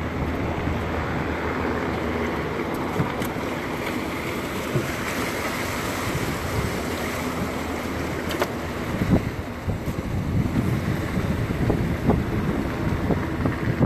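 Steady rush and splash of floodwater along a flat-bottomed jon boat moving through a flooded street, with wind buffeting the microphone. The buffeting becomes gustier and more uneven in the last few seconds.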